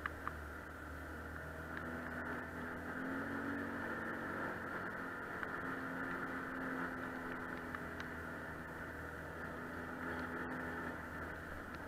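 ATV engine running steadily at riding speed on a rough dirt track, its pitch rising and falling a little with the throttle, with a few sharp clicks from bumps.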